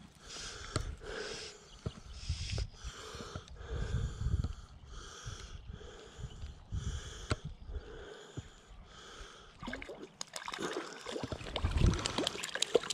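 Fly line being stripped in by hand in short, regular pulls, about one every two-thirds of a second, as a small hooked brown trout is brought in. Near the end the trout splashes at the surface, with wind rumbling on the microphone throughout.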